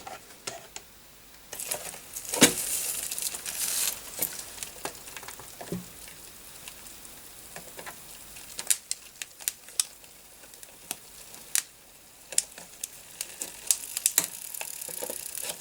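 Flux sizzling and crackling as a fluxed motherboard connector meets the molten solder in a solder pot, with a loud hiss from about one and a half to four seconds in. Scattered sharp clicks and crackles follow through the rest.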